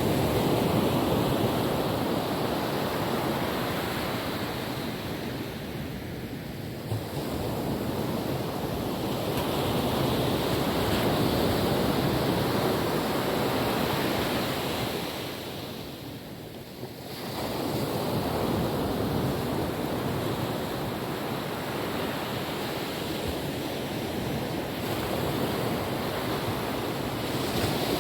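Calm ocean waves washing on a beach, a steady rush that swells and eases, dropping away briefly twice, with wind noise on the microphone.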